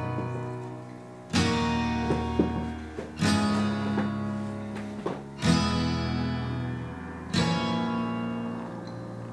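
Background music: acoustic guitar strumming a chord about every two seconds, each left to ring and fade.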